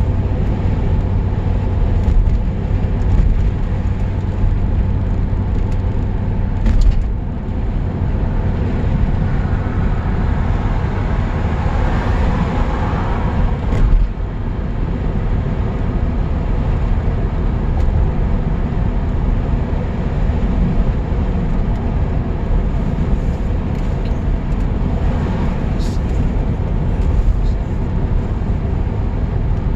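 Lancia Thema 8.32's Ferrari-built 2.9-litre V8 running under way, with road noise. The engine note swells for a few seconds about halfway through and drops off sharply, as at a gear change or lift off the throttle.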